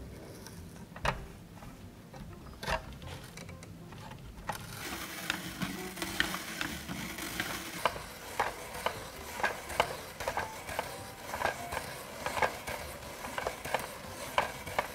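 Hand-cranked plastic spiralizer turning a cucumber against its blade, cutting it into noodles: a steady rasping cut with regular clicks about twice a second, starting about four and a half seconds in. Before that come a few knocks as the cucumber is fixed in place.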